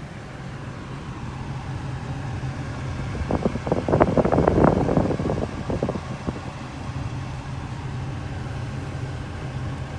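The Prelude's engine idling, a steady low hum heard from inside the cabin. A burst of clicking and rattling swells and fades between about three and six seconds in.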